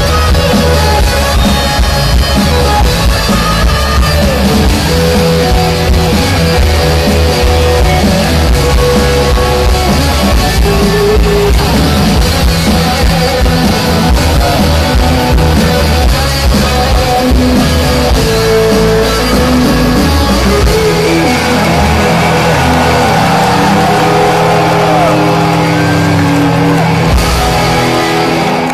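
Rock band playing live with electric guitar and drums, loud and full, in an audience recording. About two-thirds of the way through the deepest bass drops away, leaving guitar and higher parts playing on.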